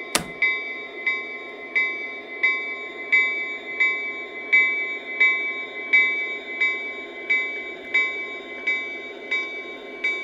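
The sound system of a Lionel O scale SD70 diesel locomotive rings its bell steadily, about three strikes every two seconds, over the low rumble of the running model train. A sharp click comes right as the bell starts.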